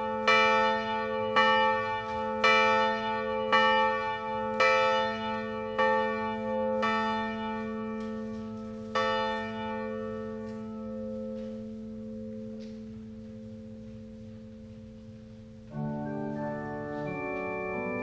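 A single church bell tolling: seven strikes about a second apart, one more a couple of seconds later, then its ring slowly dies away. Near the end an organ comes in with held chords.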